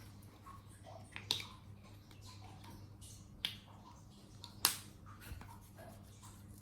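Three sharp clicks, the last the loudest, with fainter small ticks between them, over a low steady hum.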